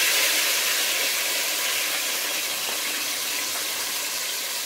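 Blended onion, garlic, tomato and pepper purée sizzling as it hits hot oil in a pot: a loud, even hiss that slowly fades.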